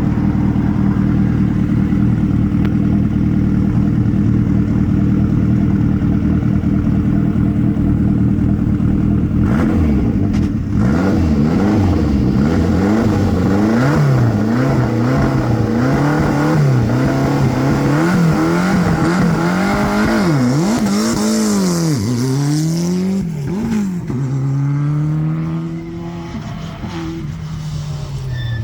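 A historic rally car's engine is held at steady revs for about nine seconds, then the car accelerates hard away from the stage start. Its pitch repeatedly climbs and drops with each gear change, and it settles into a steadier, fainter note near the end.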